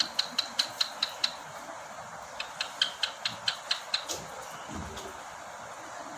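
Cockatiel making rapid runs of short, sharp clicking notes, about five a second, in two bursts with a pause between.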